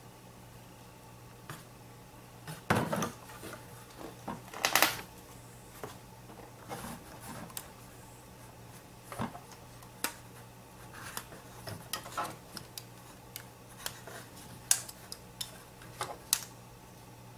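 Handling noise from a pop-up headlight motor being turned in the hands on a cardboard-covered bench while a rubber band is wrapped around its housing: irregular clicks, taps and knocks, the loudest about 3 and 5 seconds in. A low steady hum runs underneath.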